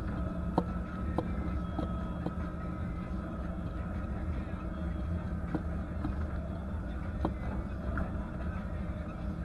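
1989 Ford Bronco driving on a dirt road, heard from inside the cab: a steady low engine and road rumble with scattered sharp clicks and knocks.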